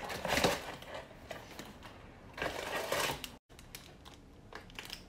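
Packaging being handled as a cardboard gift box is opened and a bath sponge in plastic wrap is taken out: rustling and crinkling in two bursts, with small knocks and clicks between.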